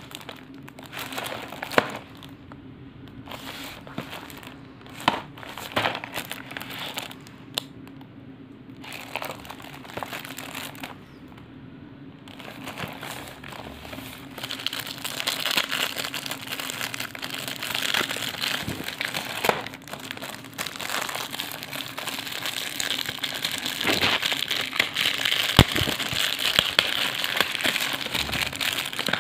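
Clear plastic wrap around a cardboard snack box crinkling and crackling as hands handle and turn it. Scattered crackles at first, becoming continuous, louder crinkling about halfway through.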